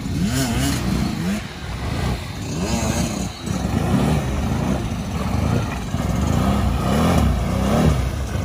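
Quad (ATV) engine revving up and down over and over, each rev a rising-then-falling note, as the machine is driven through shallow water.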